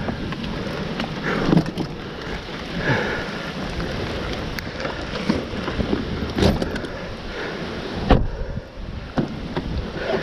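Heavy rain and wind noise in a severe thunderstorm, with a loud thump about eight seconds in, after which the sound turns duller.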